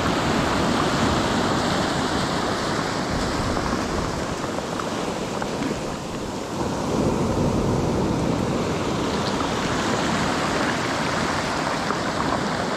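Sea swell and surf washing on the shore in a steady rush of water, easing a little about six seconds in and building again about a second later.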